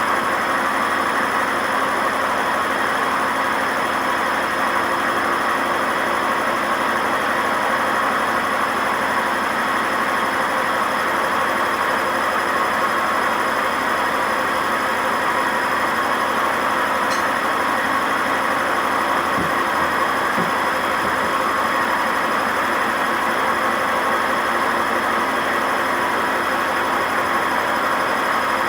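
Hotpoint WMA50 washing machine spinning at speed with its ballast weights removed: a steady loud mechanical noise with a constant high whine, the sound of very bad drum bearings.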